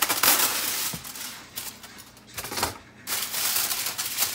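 Aluminium foil crinkling as it is pressed and folded down over a bowl of dough. It is loud at first, eases off for a couple of seconds, then crackles again from about three seconds in.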